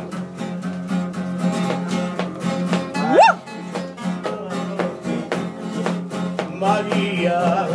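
Two acoustic guitars, one a nylon-string classical guitar, playing an instrumental passage together with steady strumming and picking. About three seconds in, a single brief rising vocal cry sounds over the guitars.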